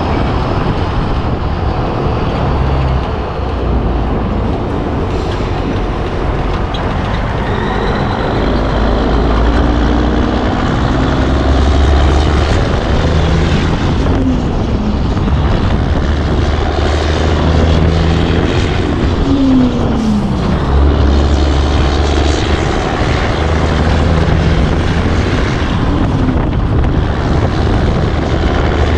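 Highway driving noise on an open flatbed trailer: wind buffeting and road rumble over the steady drone of a semi tractor's diesel engine pulling the load. The low rumble swells and eases in long stretches.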